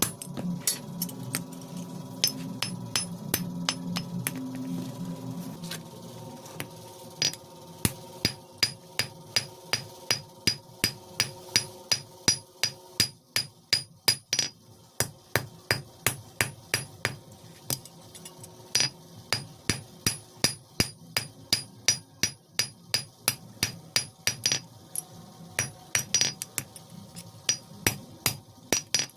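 Blacksmith's hammer striking iron on an anvil while forging a cold chisel (chheni): a steady train of blows, about two to three a second, each with a short metallic ring. A low steady hum sits under the first few seconds.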